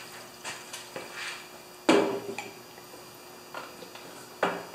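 Metal clanks and light clicks as a portable generator's control panel is handled and fitted against its frame. One sharp clank with a short ring about two seconds in, and another near the end.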